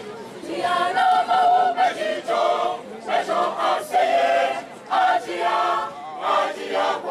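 A choir of young men and women singing together in a traditional Ghanaian song, in phrases that break about every second, growing louder about half a second in.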